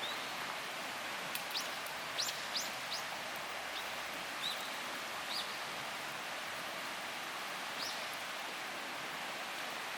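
Small birds chirping, a handful of short high chirps in the first half and one more near the end, over a steady rushing hiss.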